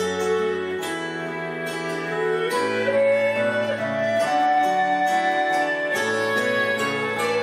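Small ensemble playing an Irish tune: a wooden recorder carries a held, flowing melody that climbs about halfway through. Under it a keyboard and plucked strings keep up chords and a regular picked beat.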